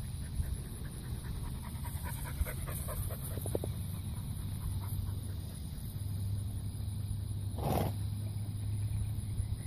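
Horse being ridden on dusty ground: faint soft hoof falls, then one short, loud snort about eight seconds in.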